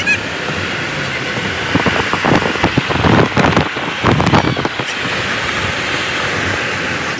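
Steady rush of wind and road noise in a moving car, with rougher, gusty wind buffeting on the microphone from about two to four and a half seconds in.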